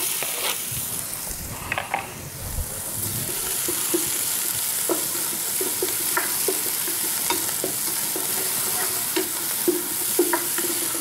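Oil sizzling in a wok as chopped red onion is tipped in from a plastic cutting board and stirred with a wooden spoon, the spoon making short scrapes and taps against the pan. The sizzle grows louder about two seconds in.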